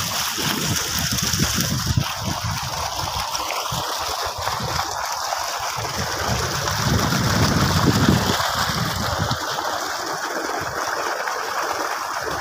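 Tubewell water gushing and gurgling into a muddy pool, a steady rushing hiss. An uneven low rumble under it swells about seven seconds in.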